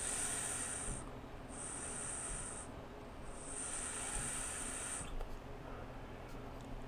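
Vaping on a Golden Greek Penelope rebuildable atomizer: a high-pitched hiss as it is drawn on, in three stretches, then a softer stretch near the end as the vapour is exhaled.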